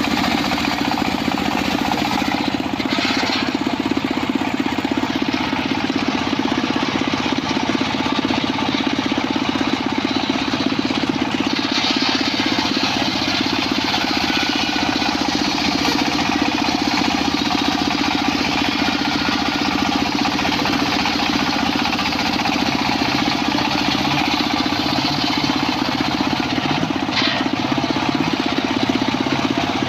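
Circular saw rig running steadily with a continuous mechanical drone, with brief stronger hissing surges about 3 seconds in, around 12 seconds and near the end as the blade works through wood.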